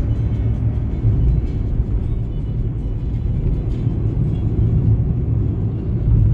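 Road noise heard inside a car cabin at highway speed: a steady low rumble of engine and tyres on the road. Music plays faintly over it.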